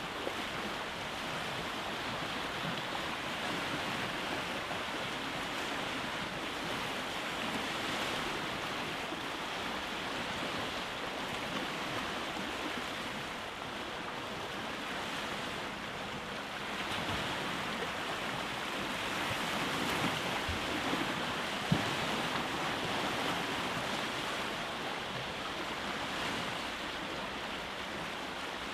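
Waves breaking on a rocky beach: a continuous wash of surf that slowly swells and eases, with one sharp click about three-quarters of the way through.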